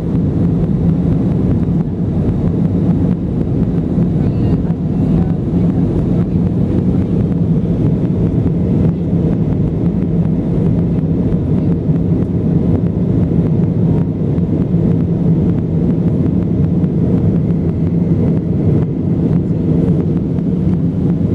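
Airbus A320 in flight, heard as a steady low drone of engines and rushing air, with no change in pitch or loudness.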